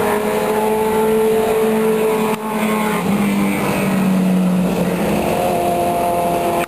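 Superbike engines running at high revs along the straight, a loud steady engine note whose pitch drops slightly about three seconds in as a bike goes past, with a second, higher engine note joining near the end.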